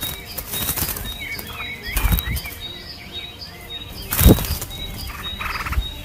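An adult bird flapping its wings hard at the nest, several loud whooshing wingbeat rushes, the loudest a little after four seconds in, with short bird chirps between them.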